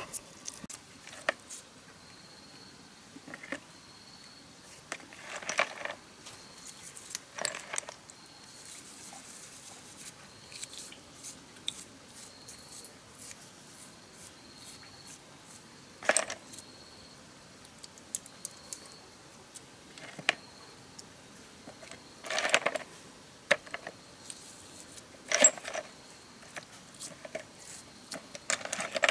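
Small oily metal pump parts being washed by hand in a basin of cleaning liquid: scattered clinks and rattles of metal on metal, with a few short swishes of liquid.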